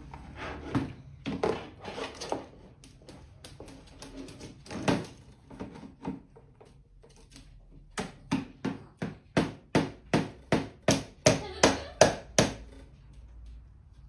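African grey parrot knocking a clear plastic tub with its beak: scattered knocks at first, then from about eight seconds in a steady run of about three knocks a second that grows louder and stops about a second and a half before the end.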